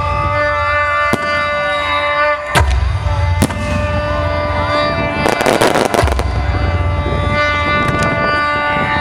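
Fireworks going off over music: sharp bangs about one, two and a half and three and a half seconds in, and a dense salvo of crackling around five and a half to six seconds, with low booming rumbles between. Music with long held tones plays underneath.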